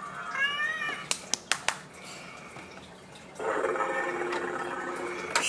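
Battery-powered Goliath Dino Meal toy T. rex playing its electronic growl sound effects through a small speaker: a short rising call, a few plastic clicks about a second in, then a longer growl of about two seconds near the end.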